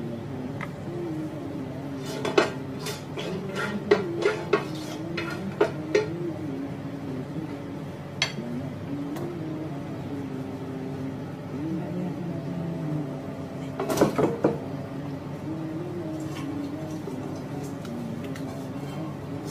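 Metal cookware clanking and clinking: a pot lid and utensils knocking against a large cooking pot on a gas stove. There are a few sharp clanks in the first six seconds and a quick cluster of them a little past the middle.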